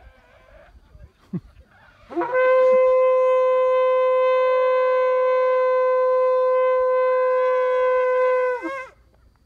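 A long spiralled shofar sounding one long, steady blast at a single pitch, starting about two seconds in and held for some six seconds, its pitch dipping as it cuts off near the end.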